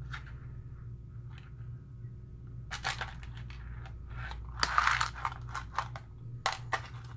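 Small metal screws clicking and rattling as a hand picks through them. The clicks are scattered at first, turn into a busier rattle about halfway through, and end with a few sharp clicks near the end.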